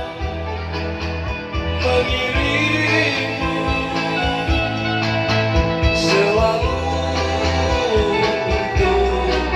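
A man singing a song over backing music with a steady bass line.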